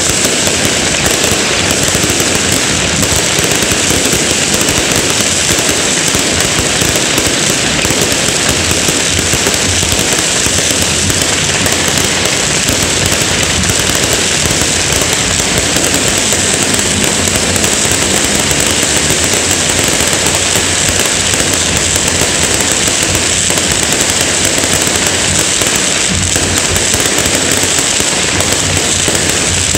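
Fireworks and firecrackers going off in a dense, unbroken barrage of crackling bangs at a steady loudness.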